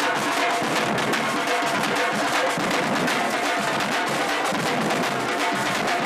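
Batuque drumming: a percussion group playing many drums together in a dense, continuous rhythm.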